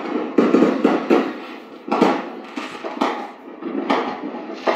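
A rapid, irregular series of sharp impacts, about two or three a second, each with a short ringing tail.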